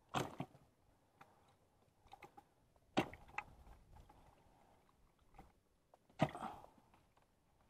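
Handling of freshly caught skipjack tuna in a plastic bucket: a few short knocks and handling noises. The loudest come about three seconds in and just after six seconds, with small ticks between.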